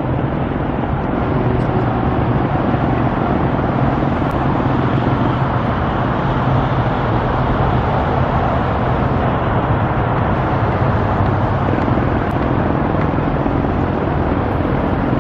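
Steady roar of freeway traffic, cars and trucks passing in a continuous wash of road noise.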